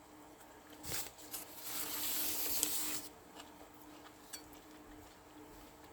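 A person tasting hot soup from a spoon: a brief noise about a second in, then a breathy mouth sound, a sip or blow, lasting about a second and a half.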